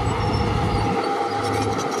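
Heavy diesel earthmoving machinery running, a steady engine drone with a thin steady tone above it. The deepest part of the engine sound drops away about a second in.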